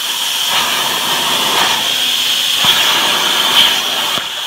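Hypertherm Powermax 85 plasma torch cutting 3/8-inch plate on a CNC table: the arc gives a loud, steady hiss with a shrill high edge.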